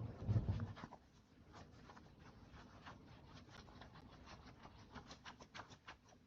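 A low thump, then a run of light, quick clicks at an irregular pace of several a second: keys being typed on a keyboard.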